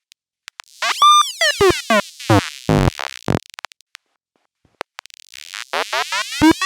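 Synthesized robot beeps and warbling chirps in the style of R2-D2: a quick run of bleeps and a short low buzz, a pause of about two seconds, then rising whistles near the end.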